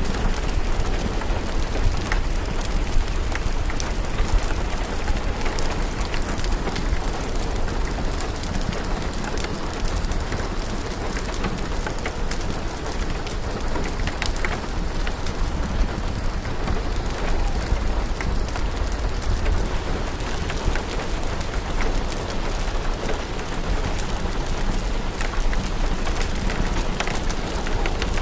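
Steady rain with scattered small crackles and ticks from a fire, over a constant low rumble. The mix stays even throughout, with no single event standing out.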